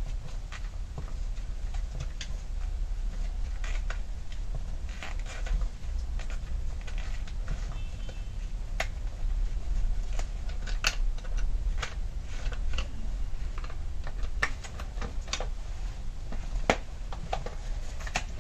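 Scattered clicks and taps of plastic and metal as gloved hands work the screwed-on plastic top cover off a Keil KL6050 gasoline chainsaw, over a steady low hum.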